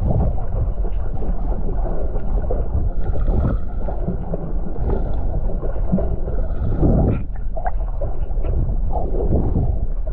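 Muffled underwater rumble and water movement picked up by a camera in a waterproof housing held below the surface, with a few faint short clicks and chirps about seven seconds in.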